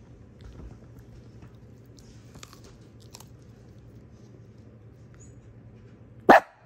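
A small dog gnawing a frozen raw chicken foot, with a few faint crunches, then one loud, short sound near the end.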